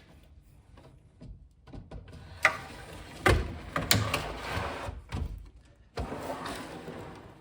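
A drawer sliding on newly mounted drawer slides in a cabinet: a run of sliding noise with several knocks, starting about two and a half seconds in, and a second slide starting with a knock about six seconds in.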